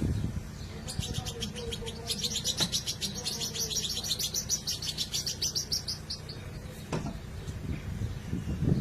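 Bird calling: a rapid run of high chirps, about eight a second, lasting about five seconds, over low rumbling noise.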